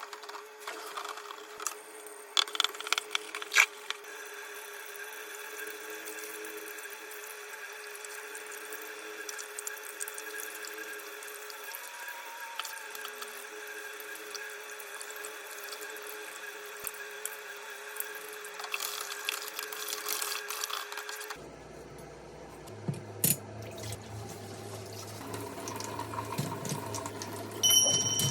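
Tap water running into a kitchen sink as greasy range hood fan parts are rinsed, with a few clattering knocks a few seconds in. The running water stops about three quarters of the way through, and a low hum takes over.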